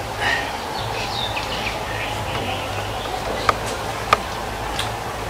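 Small birds chirping in the undergrowth, with two sharp snaps about three and a half and four seconds in as a thin stick is broken, over a steady low hum.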